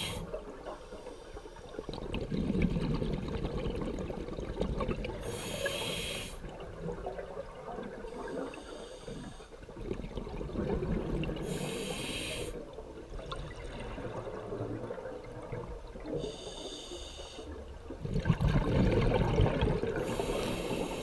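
Scuba diver breathing underwater through a regulator: a hissing inhale through the demand valve about every five to six seconds, and between the breaths the low bubbling rumble of exhaled air, loudest near the end.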